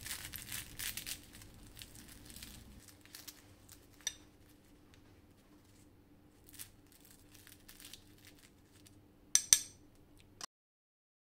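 A table knife cutting through crisp, syrup-soaked phyllo layers of a şöbiyet baklava, crackling and crunching densely for the first three seconds, then with scattered crackles. Near the end come two sharp clinks of the knife, the loudest sounds.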